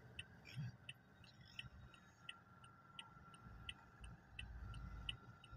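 A Toyota's turn-signal flasher ticking faintly and evenly, about three clicks a second, over the low hum of the idling engine inside the cabin.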